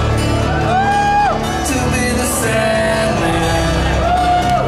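Wrestler's entrance music played loud over a PA: a song with a singing voice holding long notes over a steady bass line.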